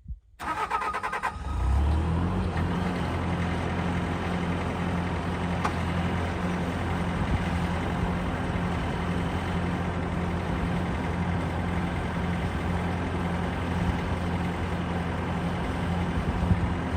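An engine cranked by its starter for about a second, then catching and running steadily at idle.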